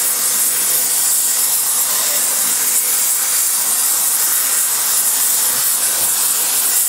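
Spray welding torch flame hissing steadily as it preheats a cast iron cylinder head.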